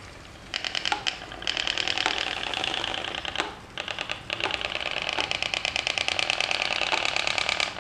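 Homemade pop pop boat's metal-sheet boiler popping rapidly as it runs. The even stream of steam pulses from the heated boiler drives the boat. The ticking starts about half a second in and drops out briefly a little after three and a half seconds.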